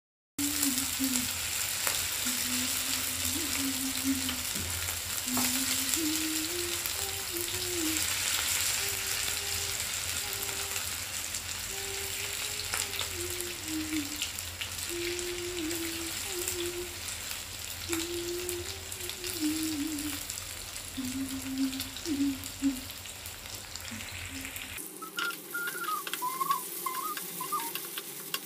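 Marinated boneless chicken pieces shallow-frying in hot oil in a nonstick pan, sizzling steadily.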